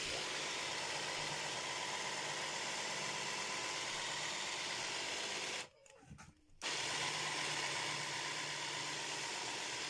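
Hand blender with a chopper bowl attachment running steadily, chopping herring with processed cheese and butter. The motor stops for about a second a little past halfway, then starts again.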